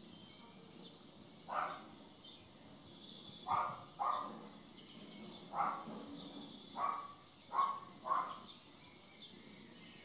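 A cat meowing in short calls, seven in all, some coming in quick pairs.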